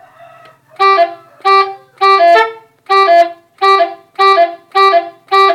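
Truck telolet horn, a set of tuned air-horn trumpets, sounding a string of about eight short chord blasts, somewhat less than two a second, some stepping down to a lower note at the end.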